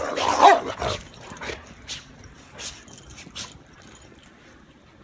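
Dogs playing together in deep snow, one giving a short, rough bark about half a second in, followed by scattered brief sounds that fade toward the end.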